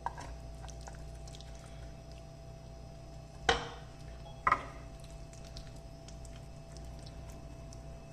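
Cooking sounds over a steady low hum: faint scattered clicks, and two loud knocks or scrapes about a second apart near the middle.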